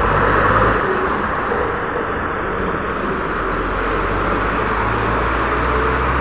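Diesel engine of an articulated Ikarus city bus pulling away from a stop and driving off, a steady low engine drone under street traffic noise.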